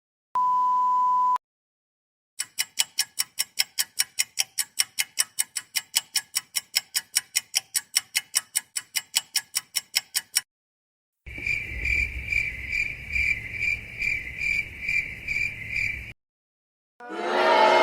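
A row of separate meme sound effects. First comes a one-second steady beep like a censor bleep, then about eight seconds of rapid ticking at roughly five ticks a second. Then about five seconds of pulsing cricket chirps, the 'awkward silence' effect, and near the end a loud crowd sound begins.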